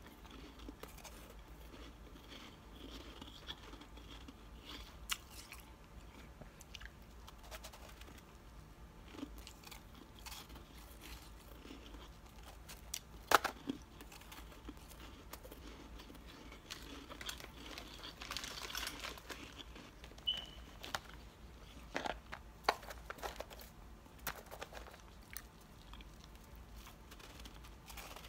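Biting and chewing powdery chunks of freezer frost: irregular soft crunches, the loudest about halfway through, with a run of crunching a few seconds later.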